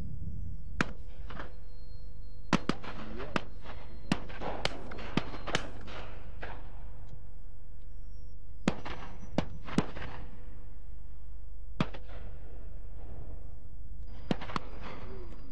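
Shotguns firing at driven pheasants: more than a dozen shots from several guns, some louder than others and some in quick pairs, over a steady low rumble.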